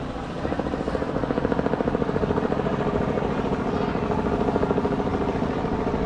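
A motor running with a fast, even pulse over a steady drone, getting louder about half a second in.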